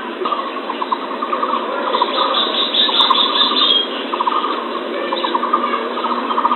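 Birds chirping and trilling in rapid repeated bursts, heard through a narrow, tinny recording with no low bass. No steady dove hoot sounds.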